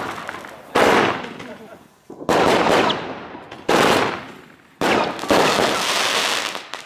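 Weco Tiger & Dragon XXL fan-cake battery firing five loud shots, about one every second or so. Each shot breaks into crackling that fades away over about a second.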